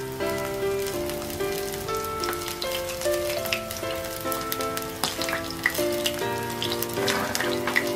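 Panko-breaded fish fillets shallow-frying in oil in a non-stick pan, sizzling with scattered crackles and pops that grow busier in the second half. Background music with a simple melody plays throughout.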